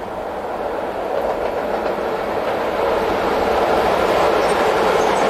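Electric locomotive-hauled train approaching on the rails: a steady rolling noise of wheels on track that grows louder as it nears.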